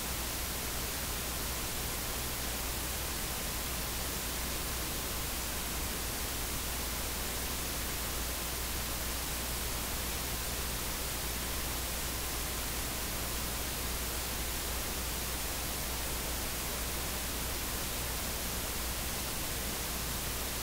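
Steady electronic hiss, like static, with a faint low hum underneath and no change in level.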